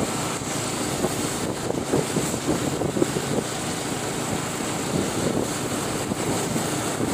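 Motorcycle riding along a road: a steady mix of engine and wind noise on the microphone.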